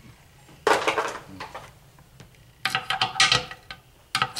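Screwdriver scraping and clinking against the roller bearings of an NP208 transfer case's front output shaft rear bearing, prying the rollers out of the notched bearing. Three bouts of metallic scraping with a ringing clink: about a second in, around three seconds in, and again near the end. The rollers have little tips that keep them from coming out easily.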